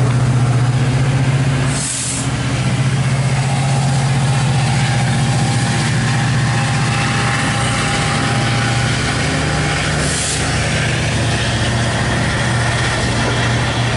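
MARC MP36PH-3C diesel locomotive engine running with a steady low hum, with short hisses about two seconds in and again about ten seconds in.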